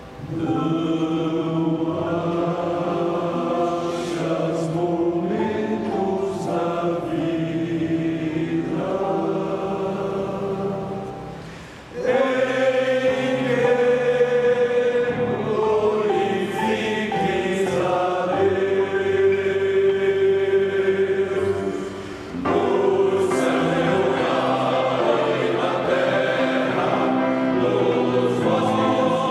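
Men's choir singing a hymn in sustained chords of several parts. The sound dips briefly twice, and a louder phrase enters about twelve seconds in and again about twenty-two seconds in.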